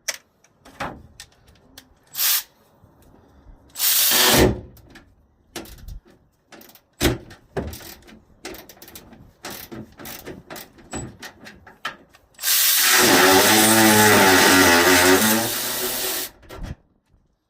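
Tool clatter and clicks while bolts are worked loose, with a short burst from a power tool about four seconds in and a longer, loud run of about four seconds near the end as it spins a bolt out.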